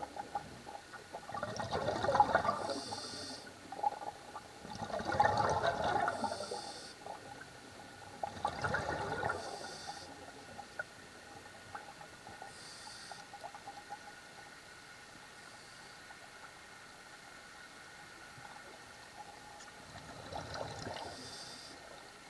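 Scuba diver breathing through a regulator underwater. Each breath is a gush of exhaled bubbles followed by a short hiss as the regulator delivers air on the inhale. About three breaths come roughly three and a half seconds apart, then a lull, and one fainter breath near the end.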